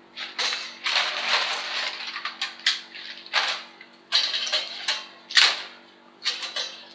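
Lumps of hardwood charcoal clattering as they are dropped by hand into metal chimney starters: an irregular run of hard clinks and knocks, some louder than others.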